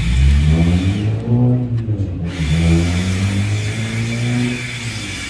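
A person humming with closed lips while tasting a chocolate-frosted Long John doughnut: a run of low 'mmm' tones gliding up and down in a few short phrases.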